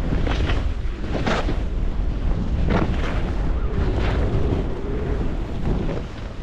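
Wind buffeting the microphone, with skis hissing and scraping over snow in a series of turns. Quieter near the end.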